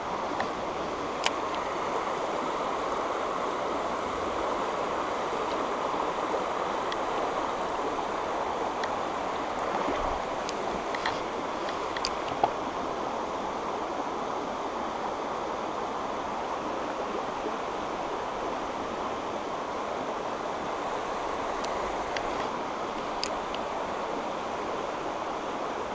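Shallow, rocky stream flowing over stones: a steady rush of running water, with a few light clicks here and there.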